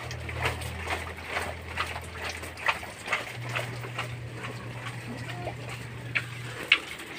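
Water poured from a plastic dipper splashing onto potted plants and soil, in a run of irregular short splashes, a few louder than the rest.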